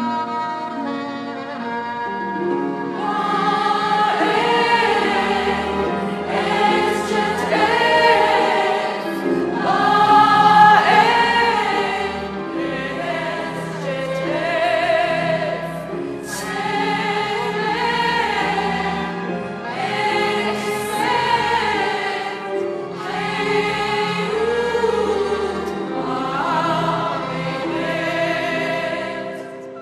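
Orchestral music: sustained string notes, then, about three seconds in, a soprano voice enters, singing long phrases with wide vibrato over the orchestra and a choir, with low bass notes underneath. The text is sung in ancient Egyptian (hieroglyphic) words.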